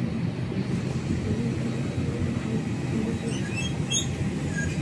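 Steady low rumble of an Airbus A320 cabin at rest, its air and ventilation running, as passengers shuffle up the aisle. A few short high clicks and chirps come about three to four seconds in.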